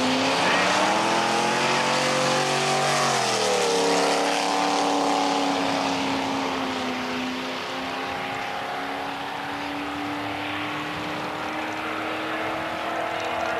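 Drag-race car launching off the starting line at full throttle. The engine revs up, drops in pitch at a gear shift about three seconds in, then pulls steadily again while fading as the car runs away down the strip.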